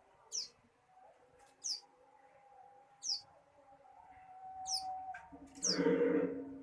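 Young ciblek sawah (a prinia) giving short, high chirps that sweep downward, repeated about every second and a half, five times. Near the end a louder, lower sound runs under the calls for about a second.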